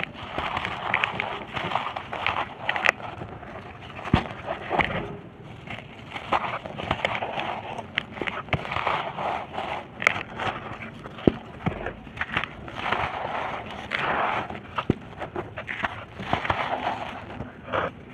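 Dry red dirt and brick shapes being crushed and crumbling: a dense run of crunchy crackles and gritty rustling with frequent sharp snaps.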